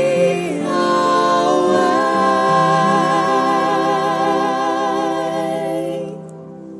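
Female vocal group holding the song's final note with vibrato over its backing music. The voices fade out about six seconds in, leaving the accompaniment's closing chord to sound.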